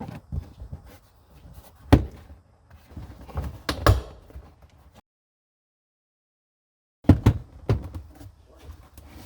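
Toyota RAV4 rear interior trim panel being pulled free by hand: rustling handling with sharp knocks and clip pops about two and four seconds in, then after a dead-silent gap a quick cluster of knocks as the piece comes away.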